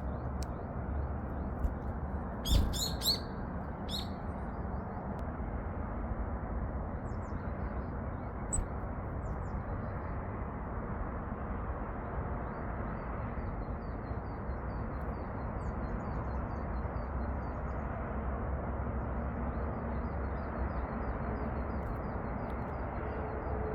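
Small wild tits calling: a few loud, high chirps close by about two and a half seconds in, with a thump among them, then runs of faint, quick, high chirps later on, over a steady background rush.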